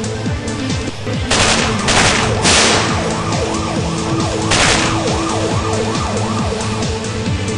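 Electronic dance music with steady held notes continues, while a siren-like yelping wail rises and falls about twice a second. Three loud bursts of hiss come in the first five seconds.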